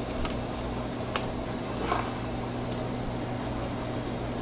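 Steady machine hum, with a few light clicks and handling noises as a refrigerator door gasket is pulled back from its screw-on track, about one and two seconds in.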